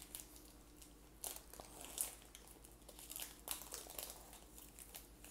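Foil wrapper of a baseball card pack crinkling as it is torn open by hand: a run of sharp crackles, loudest about two seconds in.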